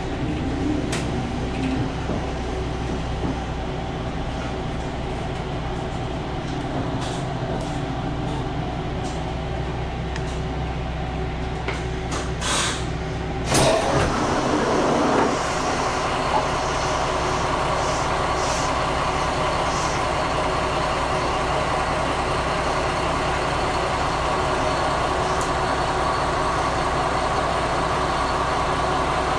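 Diesel limited-express railcar running, its engine a steady drone heard from inside the driver's cab. About halfway through comes a short, loud rush of noise. After it the engine runs louder as the train picks up speed.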